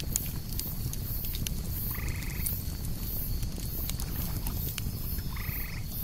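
Campfire crackling and popping over a steady low rumble, with cicadas buzzing in a high, pulsing chorus. A frog croaks twice, about two seconds in and again near the end.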